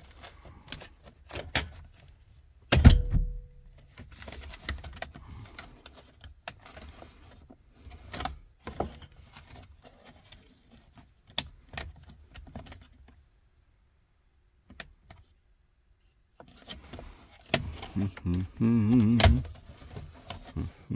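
Clicks, knocks and light rattles of steering-column parts and trim being handled and fitted together on a pickup, with one sharp knock about three seconds in. Near the end comes a low muttering voice.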